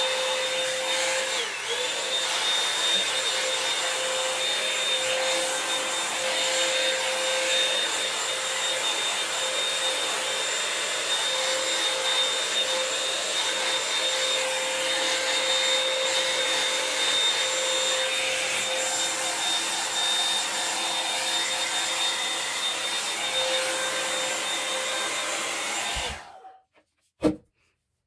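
Revlon One-Step hair dryer and volumizer (a hot-air brush) blowing steadily, a fan noise with a steady whine, switched off near the end, followed by a single sharp click about a second later.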